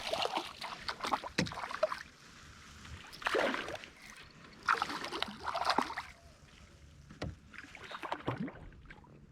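Water splashing and knocks on a kayak as a small hooked trout is brought in, in several short bursts with quieter spells between.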